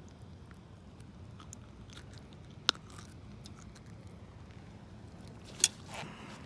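Faint crackling handling noise with two sharp clicks about three seconds apart, over a low steady hum.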